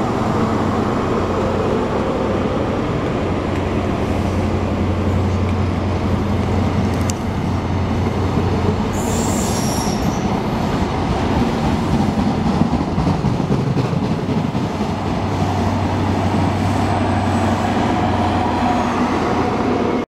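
Cross Country HST passing, its Class 43 power car's MTU V16 diesel giving a steady low drone under power, with the coaches rumbling over the rails. A brief high-pitched wheel squeal comes about nine seconds in.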